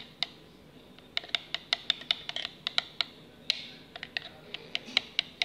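A small whisk stirring liquid soap in a plastic measuring pitcher, clicking irregularly against the sides several times a second, with a pause of about a second early on.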